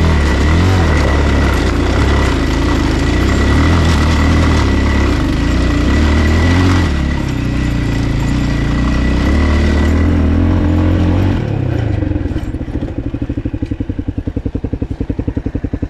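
Motocross bike engine running steadily while riding, then dropping to idle about eleven and a half seconds in, its firing pulses evenly spaced.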